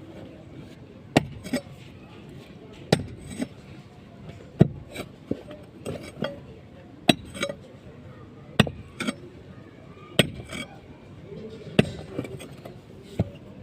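Repeated sharp strikes of a metal tool on brick, a main blow about every second and a half and often a lighter second blow just after: brickwork being broken up by hand.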